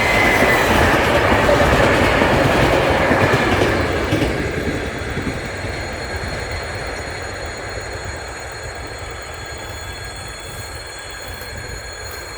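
A loud, continuous rumbling noise that is strongest for the first few seconds, carrying faint high tones, then slowly fades away.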